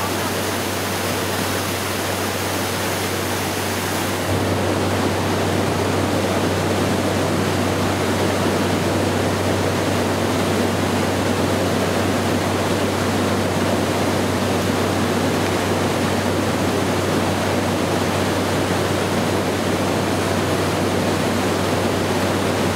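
Maria Cristina Falls' cascading water rushing in a steady, loud wash of noise, a little louder from about four seconds in.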